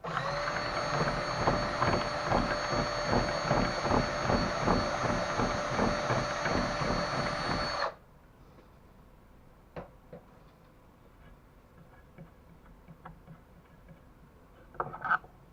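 A handheld power tool runs at a steady speed for about eight seconds and then cuts off suddenly, followed by a few faint clicks and taps.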